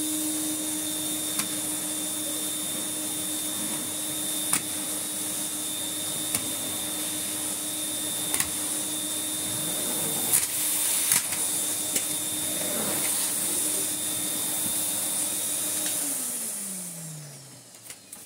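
A 1983 Electrolux 350 Electronic canister vacuum cleaner runs steadily as its floor tool is pushed over carpet, with a few sharp knocks. About sixteen seconds in it is switched off, and the motor whine falls in pitch as it winds down.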